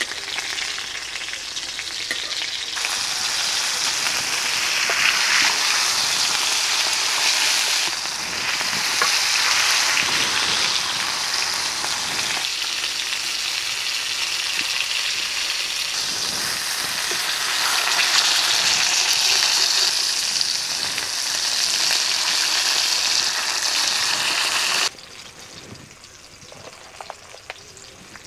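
Masala-coated pomfret fish frying in plenty of oil on a cast-iron tawa over curry leaves, sizzling steadily. The sizzle cuts off suddenly near the end.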